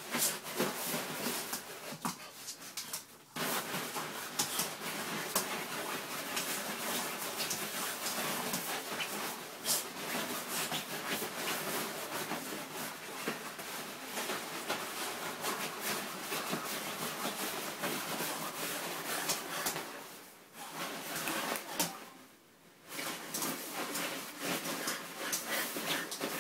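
A Staffordshire bull terrier puppy's claws scrabble and scrape at the slick nylon cover of a bean bag in a busy run of quick scratches and rustling. It breaks off briefly about three seconds in and twice more a little after twenty seconds.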